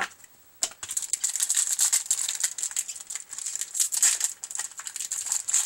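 Trading card pack wrapper being torn open and crinkled: a dense, fast crackling that starts about half a second in.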